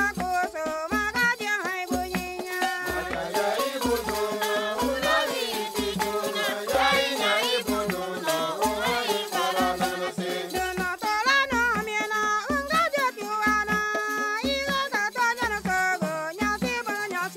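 Mixed choir of men's and women's voices singing a Christian worship song in the Turka language, over a steady low percussion beat about every 0.8 seconds.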